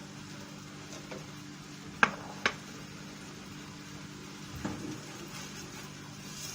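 A spoon clinks against a pan while a thickening cream sauce is stirred: two sharp clinks about two seconds in, half a second apart, and a softer knock later, over a steady low hum.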